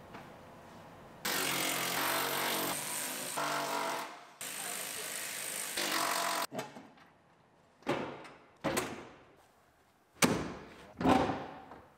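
Cordless impact driver running in two long bursts as it spins out the rear seat bolts of a Chevrolet Silverado crew cab. Several separate knocks follow in the second half as the seat is handled.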